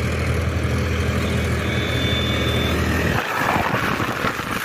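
Tractor diesel engine running: a steady drone that, about three seconds in, gives way to a rougher, uneven engine clatter close by, from the Powertrac Euro 50.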